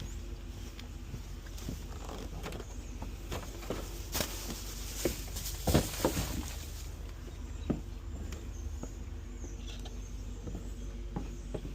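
Steady low hum and rumble of a car on the road, heard from inside the cabin. A few sharp knocks and clicks come between about four and six seconds in, with one more a little later.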